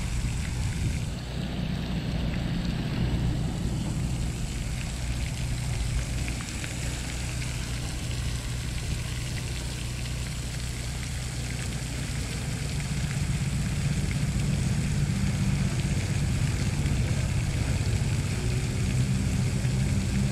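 Steady low drone of a running motor, growing a little louder from about twelve seconds in, over a faint hiss of splashing water.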